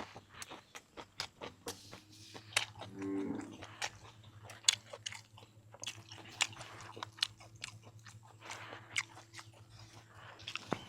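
A person chewing and crunching a mouthful of raw beef salad with sticky rice and fresh vegetables, with many wet clicks and crackles. A brief hummed "mm" comes about three seconds in.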